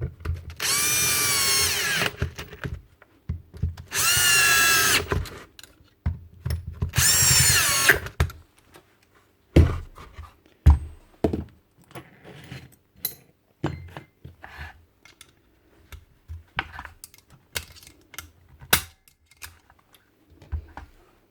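Cordless drill-driver run in three short bursts, its motor dipping slightly in pitch during each, followed by scattered clicks and knocks of parts being handled.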